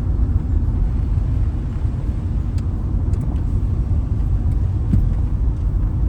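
Steady low rumble of a campervan driving on the road, engine and tyre noise heard from inside the cab.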